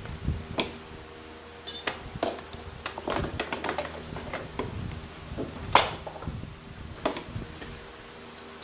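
Irregular knocks, clicks and clanks of objects being handled, over a steady low hum. The sharpest and loudest knock comes a little before six seconds in.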